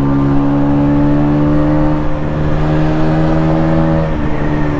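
Aprilia RS 125's two-stroke single-cylinder engine running under way at steady revs, its pitch creeping up slightly, then dropping a step about four seconds in as the revs come down.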